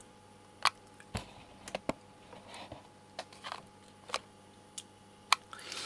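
A few faint, separate clicks and light knocks, irregularly spaced, over a low steady background hum.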